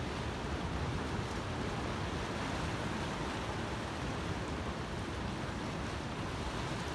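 Ocean surf washing in among coastal rocks, a steady rushing noise of waves breaking and churning through a rocky cove.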